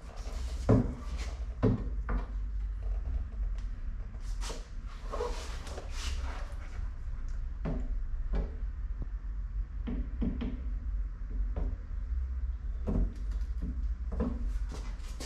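Irregular clicks, knocks and light scrapes of car door parts and tools being handled, over a steady low hum.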